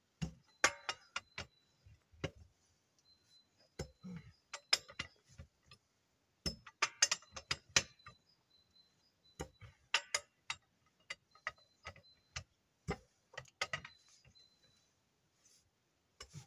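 Irregular sharp metallic clicks and knocks, in loose clusters: hand tools working the wheel nuts on a forestry forwarder's wheel hub during a tyre change.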